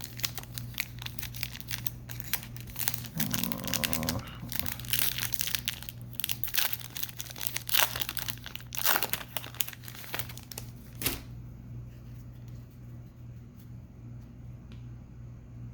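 Wrapper of a baseball card hobby pack being torn open and crinkled, a dense run of crackles that stops about eleven seconds in.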